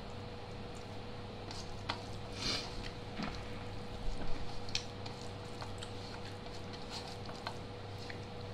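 A hand mixing and mashing rice on a stainless steel plate: soft squishes of the rice with scattered light clicks and scrapes of fingers against the metal, over a steady low hum.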